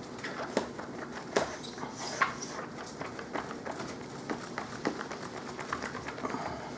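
Laptop screen being wiped and polished with a cleaning cloth: scattered light clicks and taps from handling the screen and cloth, the sharpest about half a second, a second and a half and two seconds in.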